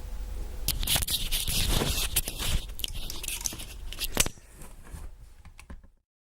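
Handling noise: irregular clicks, scrapes and rustling, with a sharp click about four seconds in, then fainter rustling that cuts off to silence about six seconds in.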